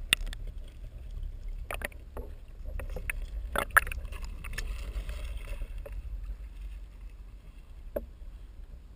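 Water splashing and sloshing, with a few sharp knocks over a steady low rumble; the loudest splashes come a little before midway, and a last knock near the end.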